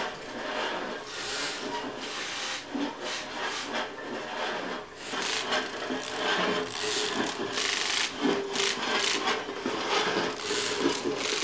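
Rough scraping and rubbing in irregular strokes, like a rasp or saw on wood. It grows louder about halfway through.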